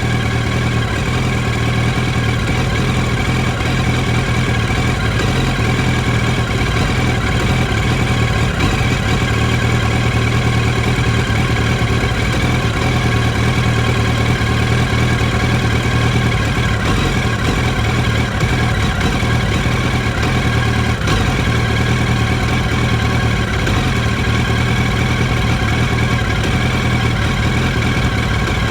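2007 Yamaha R1's inline-four engine idling steadily but roughly, sounding like it is missing (misfiring) even with new spark plugs fitted.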